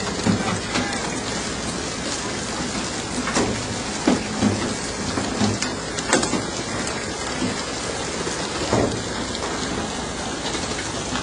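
Steady rushing hiss of churned water and spray along a fishing boat's side, with a few irregular thuds as tuna land on the wooden deck chute.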